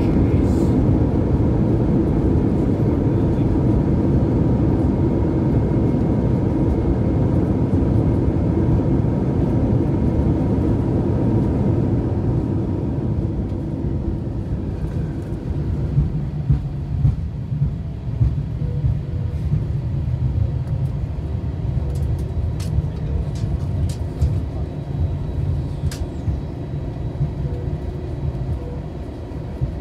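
Airbus A321 after landing, heard inside the cabin: engine and rolling noise is loud at first and eases off about twelve seconds in as the jet slows. A lower rumble of the wheels follows, with a few sharp knocks and rattles.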